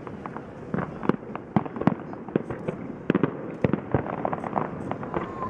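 Fireworks display: a rapid, irregular string of bangs and cracks of varying loudness over a steady crackling haze.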